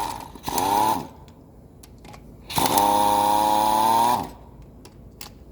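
Handheld power tool running in two bursts, a short one near the start and a longer one in the middle, its pitch steady with a slight rise. It is used to undo fasteners while the cylinder head is taken off the engine.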